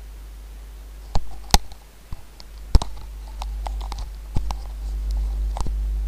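A few irregular sharp clicks and knocks over a steady low hum, which grows louder about halfway through.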